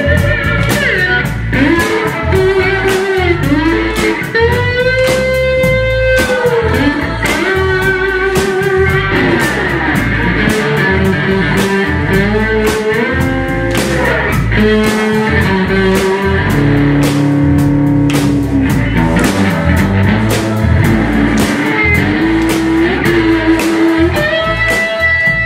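Live rock band playing an instrumental break: an electric guitar plays a lead solo of held, bent notes over a drum kit beat and bass.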